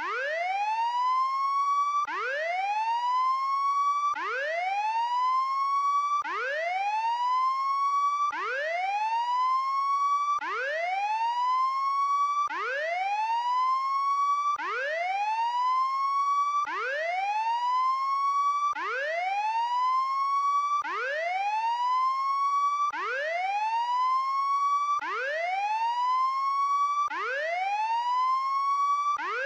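Electronic whooping prison escape alarm: a buzzy tone sweeps up and levels off, then cuts and starts again, about once every two seconds, signalling that an inmate has broken out.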